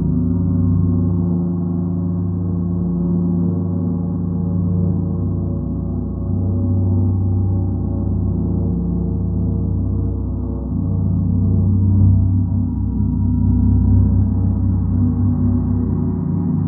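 A gong ringing in a continuous drone of many steady overtones, swelling and ebbing in loudness, with no separate strikes standing out.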